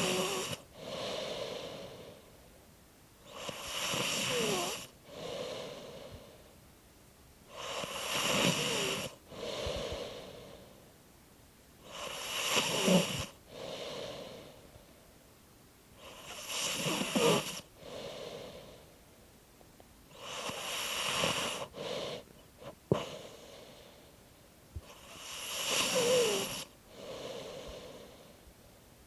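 A person snoring in a slow, even rhythm, about seven breaths, roughly one every four seconds. Each loud snore is followed by a softer breath, with quiet squeaking in it. A single sharp click about three-quarters of the way through.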